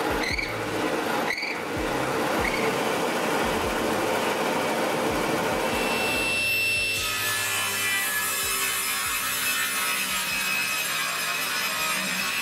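A drill press bit cutting and countersinking holes in a wooden bar. About six and a half seconds in, this gives way to a table saw running with a steady whine as it cuts slots in a wooden board.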